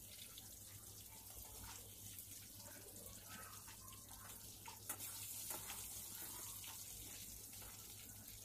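Faint, steady sizzle of the hot oil left in the kadai after shallow-frying brinjal pieces, with a couple of faint ticks near the middle.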